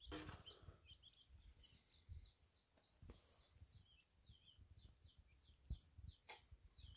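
Baby quail chick peeping: faint, high, short chirps that fall in pitch, about four a second, with a few soft knocks.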